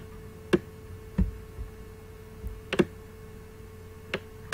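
Computer mouse clicking a few times at irregular intervals, about a second or more apart, over a faint steady hum.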